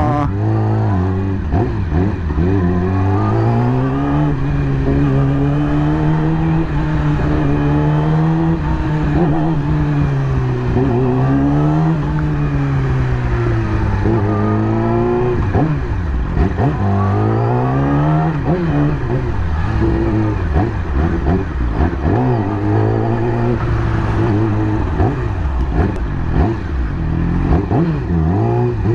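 2020 Yamaha YZF-R6's inline-four engine, rising and falling in pitch again and again as the bike accelerates and eases off in stop-and-go traffic.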